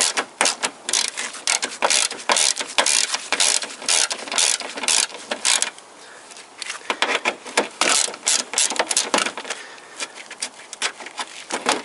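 Ratchet wrench with a 12 mm socket clicking rapidly as it is swung back and forth to unscrew a radiator mounting bolt. The clicking comes in two spells, with a short pause about halfway through.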